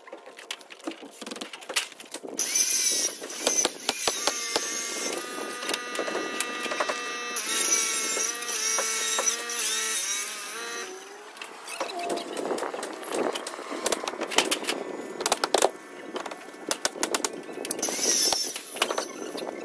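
Fast-forwarded sound of siding being nailed up with a pneumatic coil nailer: a rapid run of clicks and knocks. Squeaky high-pitched tones step up and down through the first half.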